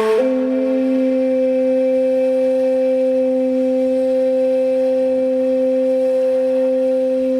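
Music: a sustained wind-instrument-like drone that comes in abruptly and holds one low note with its octave above, steady in pitch and loudness.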